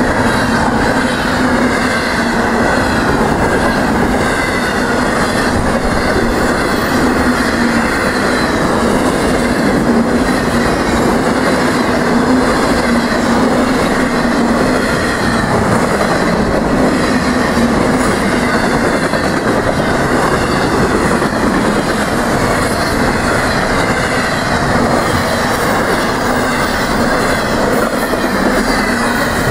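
Freight cars of a long Florida East Coast freight train rolling past at high speed: a loud, steady rush of steel wheels on rail that does not let up.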